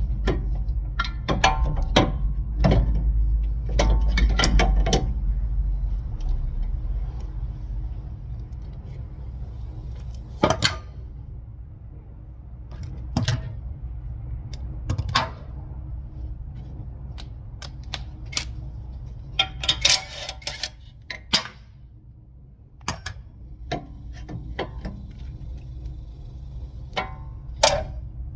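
Hand tools and metal brake parts clinking and knocking during front brake work, in irregular clusters of sharp clicks and clanks. A low rumble underlies the first few seconds and then fades.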